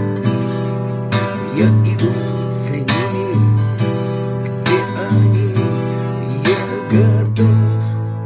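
Instrumental passage of a song: strummed acoustic guitar over a steady bass and chord bed, with strong strokes about once a second and a wavering melodic line on top.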